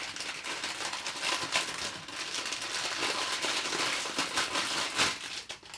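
Thin plastic packaging crinkling as it is handled, a busy crackle of many small clicks that stops just before the end.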